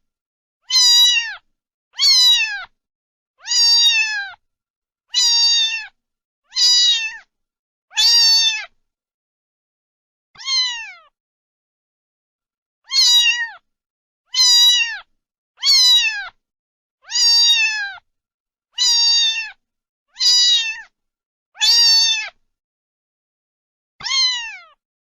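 A domestic cat meowing over and over, about fifteen short meows roughly one every second and a half, each one dropping in pitch at the end. There is a longer pause of a couple of seconds about halfway through.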